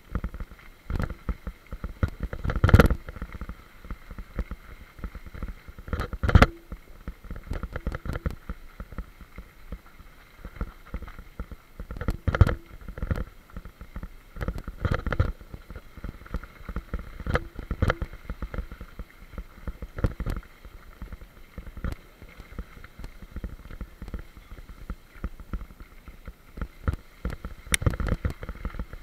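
Bicycle rolling down a gravel track: steady tyre noise on the gravel with frequent irregular knocks and rattles over the bumps, the loudest jolts about three and six seconds in.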